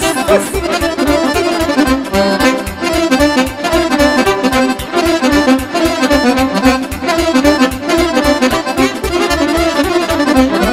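Romanian party-music band playing an instrumental passage: accordion carrying a fast melody over a steady quick bass-and-drum beat.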